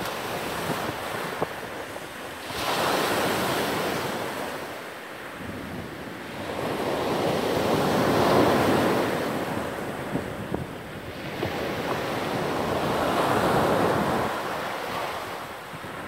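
Sea waves breaking on a pebble beach and washing back, in three slow surges that swell and fade, the loudest about halfway through.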